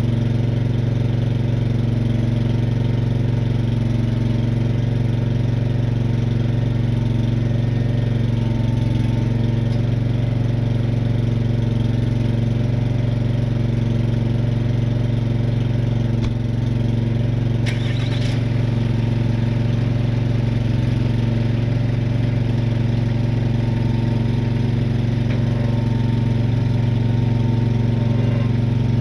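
Truck engine idling steadily, with a brief clink about 18 seconds in.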